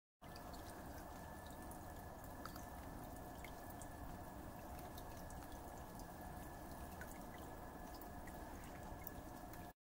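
Faint, scattered small ticks and drips from ice-glazed tree branches in an ice storm, over a steady low rumble and a faint steady two-note hum.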